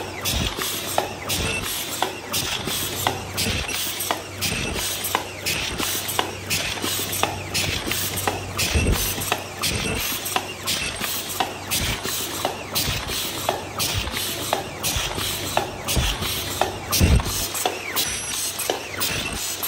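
MG-HC60 double-wall paper cup machine running at production speed: a steady, regular clatter of mechanical clicks and knocks over a low hum.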